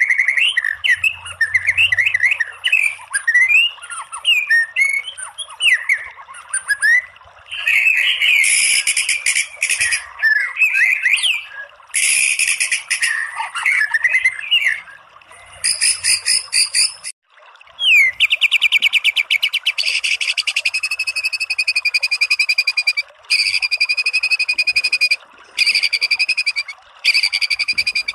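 White-rumped shama singing, first varied whistled phrases that glide up and down. About two-thirds in, the song changes to long runs of very fast repeated notes, the rapid-fire 'tembakan', broken by short pauses.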